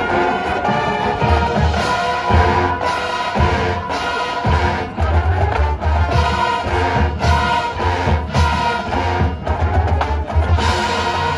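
High school marching band playing a field show: brass holding chords over repeated low drum hits.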